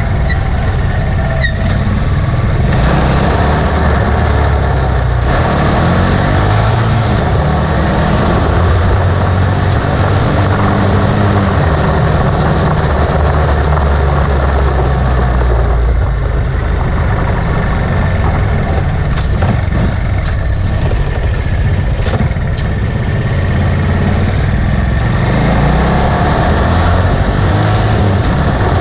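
Motorcycle engine running through an Exos R6 silent pipe exhaust while riding, a deep low note whose pitch steps up and down with speed, over a steady rushing hiss.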